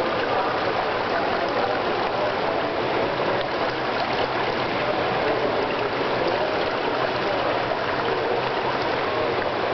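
Swimming pool ambience: a steady, even rush of moving water.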